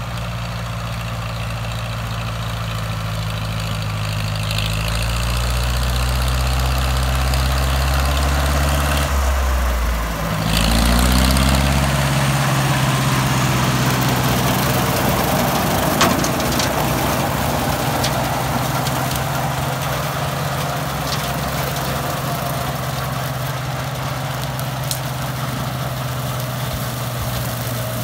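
International 300 Utility tractor's four-cylinder engine running steadily while it pulls a PTO-driven rotary mower through grass. About ten seconds in, the engine speed dips briefly and climbs back, then holds steady.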